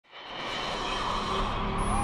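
Electronic intro music fading in: a dense, whooshing swell that grows steadily louder.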